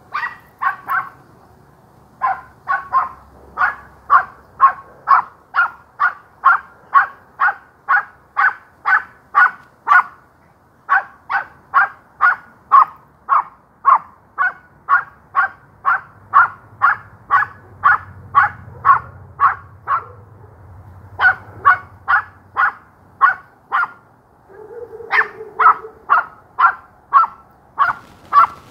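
A small dog barking over and over, about two sharp barks a second in long runs with short breaks, excited barking at a rabbit it has cornered in a garden bed.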